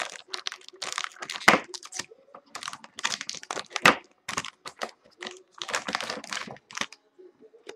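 Foil trading-card packs crinkling and rustling as they are handled, pulled out of a box and laid down, in an irregular run of short crackles.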